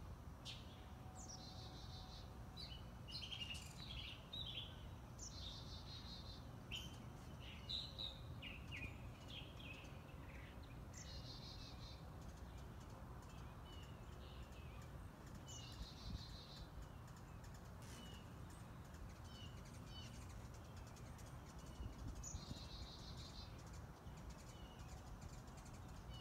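Faint backyard birdsong: one songbird repeats a short phrase five times, each a quick falling note into a buzzy trill, with scattered short chirps between, over a low steady background rumble.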